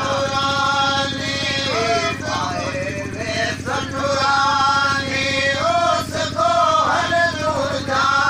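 A man's voice singing or chanting a slow melody in long held notes that bend up and down, over a steady low hum.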